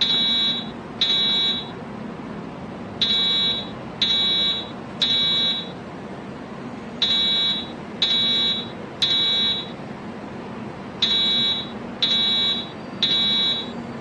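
Simulated fire alarm tone for Edwards 757 speaker strobes sounding the temporal-three evacuation pattern: three high beeps about a second apart, then a pause, repeating every four seconds.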